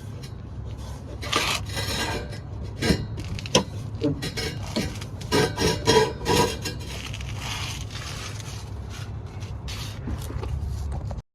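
Metal tools and exhaust parts clinking, scraping and rubbing as pipework is bolted up, with scattered sharp clinks over a steady low rumble. The sound cuts off suddenly near the end.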